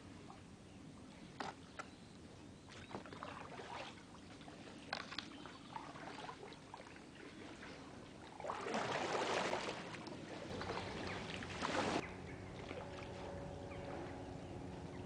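Canoe paddle strokes in a river: water splashing and swishing, loudest in a long splash about two thirds of the way through and another shortly after, with a few light knocks before.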